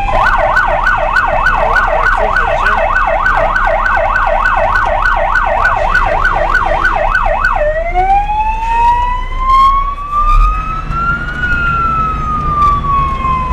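Electronic vehicle siren sounding a fast yelp, about three sweeps a second, then switching about seven and a half seconds in to a slow wail that rises and then falls.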